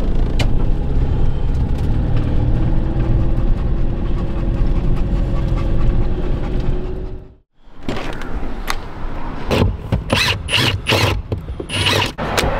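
Steady engine and road rumble inside the cab of a Fiat Ducato van on the move. It cuts off about seven seconds in. Then come a string of sharp clicks, knocks and rustles from hands working at the van's water pipework under a seat.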